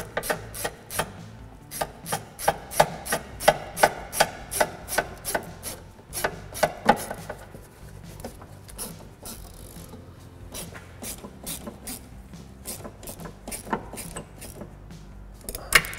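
Hand ratchet clicking rapidly as an 8 mm socket on an extension turns the screw of a worm-drive hose clamp, tightening it onto the fuel filler neck hose. The clicks are louder through the first half and fainter in the second.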